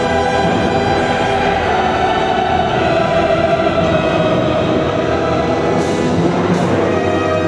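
Orchestra playing a loud, dense chord that is held steadily throughout.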